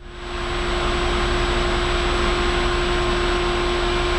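Steady machine noise: an even hiss with a constant humming tone, fading in over the first half second.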